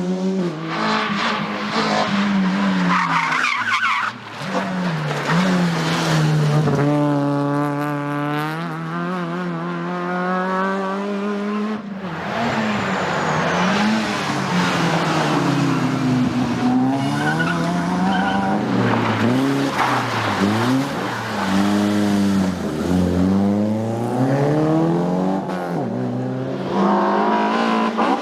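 Rally car engines at race pace, revving hard up through the gears and dropping back again and again as the cars accelerate, shift and brake through the stage. There is an abrupt change in the sound about twelve seconds in.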